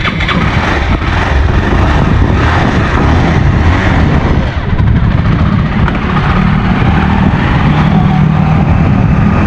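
Small motorcycle engine running as the bike rides slowly under throttle, its note climbing a little near the end, with wind noise on the microphone.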